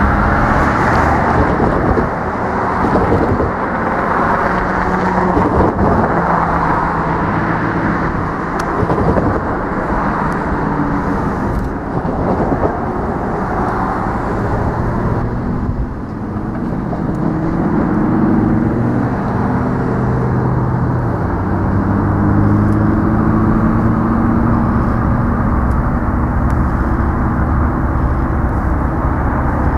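Canadian Pacific diesel locomotive approaching at the head of a tank-car train, its engine running steadily, with the engine note wavering up and down in the second half.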